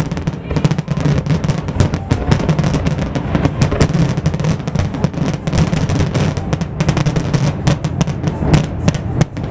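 Aerial fireworks popping and crackling in quick, dense succession, with music playing underneath.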